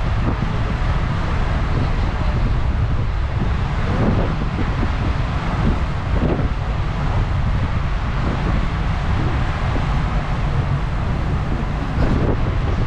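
Wind buffeting the microphone over a steady low rumble, as heard outside aboard a ferry under way.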